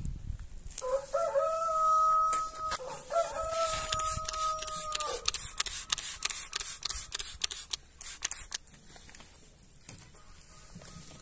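A rooster crows loudly, two long calls back to back in the first half. Over it, and on after it, a hand-pump spray bottle squirts de-icer onto a frosted car window in many quick hissing sprays.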